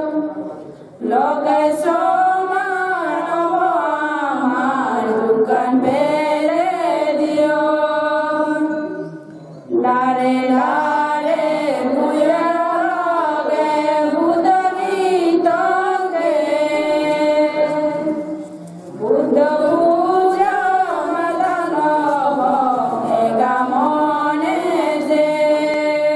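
Buddhist devotional chant sung together by a group of women's voices into a microphone, in long melodic phrases with brief breaks between them, about a second in, near the middle and about two thirds through.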